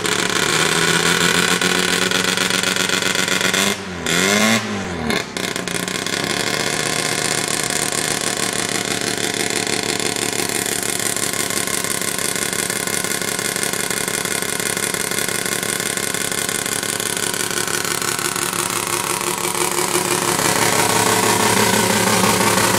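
Mazda 13B two-rotor rotary engine in a 1971 Datsun 1200 coupe running, its speed rising and falling twice in quick revs about four seconds in, then settling back to a steady idle.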